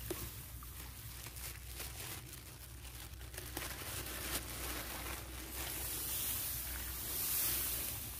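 Rustling and crackling of dry rice stalks and grass as hands push through them, growing louder about six seconds in, over a steady low hum.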